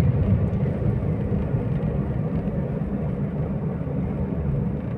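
Steady low rumble of a car on the move, heard from inside the cabin: engine and tyre noise on the road.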